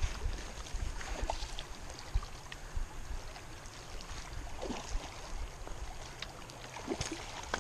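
River current rushing steadily, with a low uneven rumble and scattered small clicks and knocks on top.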